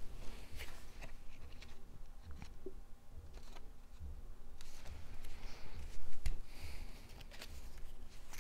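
Cardstock pieces being handled and moved on a tabletop: soft paper rustling and scattered small taps, with a louder low thump about six seconds in.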